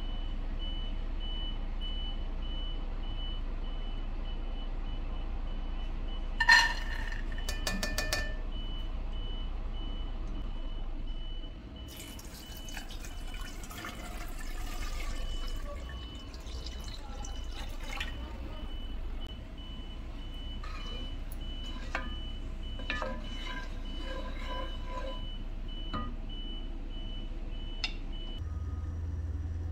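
Dry green lentils poured into an empty nonstick pot, rattling in with a sharp clatter about six to eight seconds in. Then cold water is poured from a jug over the lentils, splashing as the pot fills, followed by a few light knocks.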